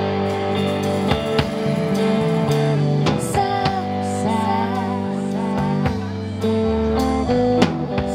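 Live rock band playing: electric guitar and electric bass over a drum kit, with a tambourine.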